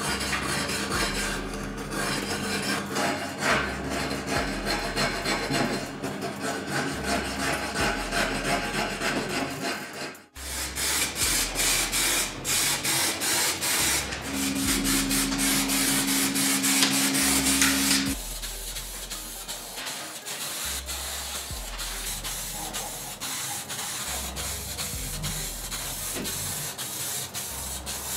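Abrasive rubbing and rasping, as in hand-finishing work on metal. It comes in separate stretches, with an abrupt break about ten seconds in and a change of sound near eighteen seconds.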